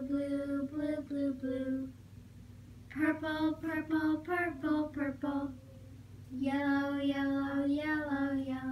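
A child singing a simple melody in three short phrases, with brief pauses between them.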